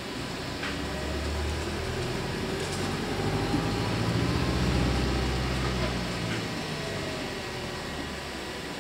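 Inside a Volvo 7900 hybrid city bus on the move: a low engine drone builds from about half a second in, is loudest around five seconds, and dies away by about six and a half seconds, over steady cabin and road noise.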